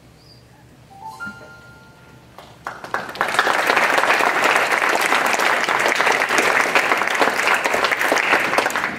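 Audience applauding, breaking out about three seconds in and keeping up steadily.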